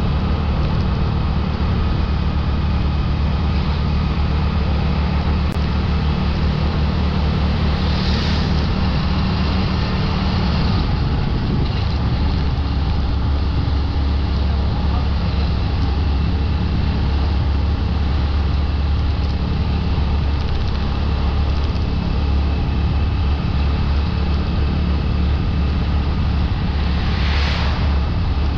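Motorbike engine running steadily while riding, with a low, even hum, plus road and wind noise on the mic. Two brief hissing swells come through, about eight seconds in and again near the end.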